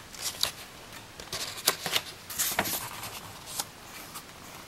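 Paper page of a hardcover picture book being turned by hand: a string of short rustles and flaps over about three seconds.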